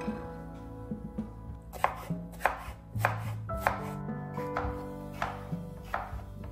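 Kitchen knife slicing a cucumber on a wooden cutting board: a string of sharp chops against the board, about eight, roughly two a second, starting about two seconds in.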